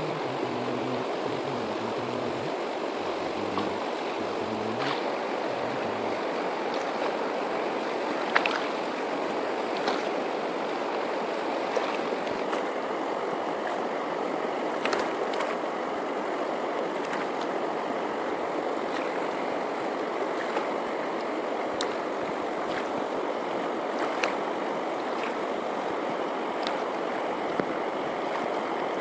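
River water rushing steadily past a stony bank, with a few sharp ticks scattered through.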